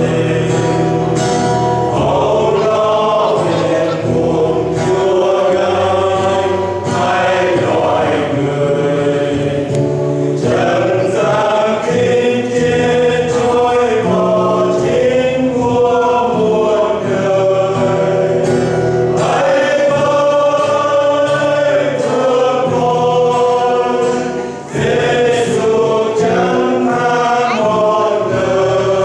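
Men's choir singing a hymn in several parts, accompanied by an acoustic guitar.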